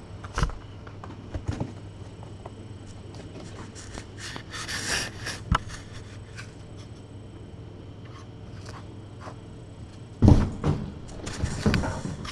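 Thumps, knocks and scrapes of kittens scampering about the room off camera, over a steady low hum. There is a brief rustling patch about five seconds in, and the loudest thumps come near the end.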